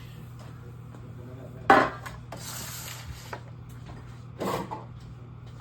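Kitchen handling sounds: a sharp clatter of a dish or pan being set down, a second or so of rustling, then a softer knock, over a steady low hum.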